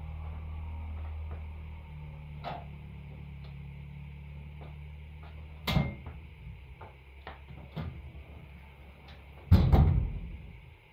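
The metal tipping bed of a Kuba electric three-wheeled pickup being raised by hand on its gas struts: a sharp clunk a little before halfway, light clicks and taps, then the loudest clunk near the end as the bed comes up.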